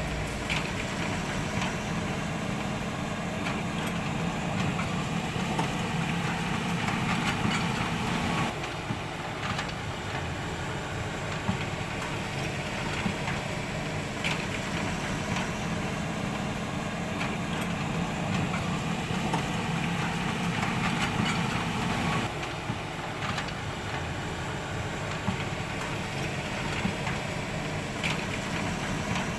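WL 16800 toy RC excavator running, a steady engine-like drone that eases off about eight seconds in and again about twenty-two seconds in, then picks up, with a few scattered clicks.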